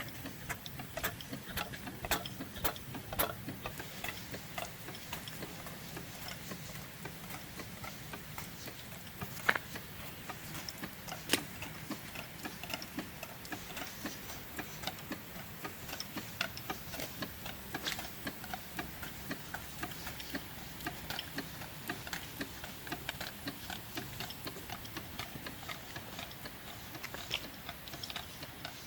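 Model steam engine running on steam, with a continuous run of light mechanical clicks and ticks; two louder clicks come about a third of the way in.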